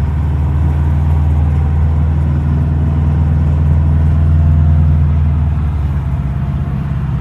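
Subaru Forester XT's EJ255 turbocharged flat-four engine running at a steady speed, a little quieter near the end. The owner is unsure whether a noise from it is an exhaust leak or wastegate flutter.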